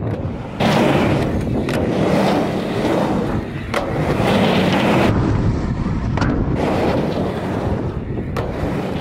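Skateboard wheels rolling on a concrete ramp with a steady rumble, cut by about five sharp clacks of the board.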